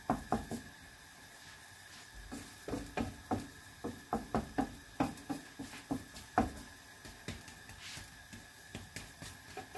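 Kitchen utensils knocking and tapping against cookware or a plate in a run of light, irregular knocks, about two to three a second, most of them from about two seconds in.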